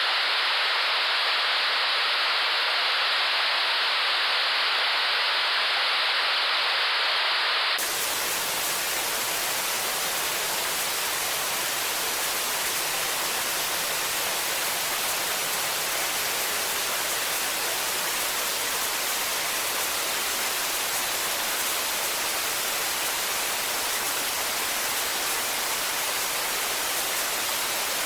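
White noise static, a steady TV-style hiss with no tones in it. About eight seconds in, it switches suddenly from a narrower midrange hiss to a fuller hiss that spreads into the deep bass and the highest treble.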